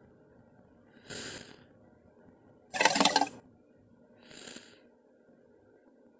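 Tarbosaurus sound effects: three short, breathy exhalations about a second and a half apart, the middle one much the loudest.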